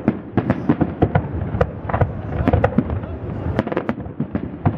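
Distant aerial firework shells bursting: a rapid, irregular string of sharp bangs and crackles, several a second, over a low rumble.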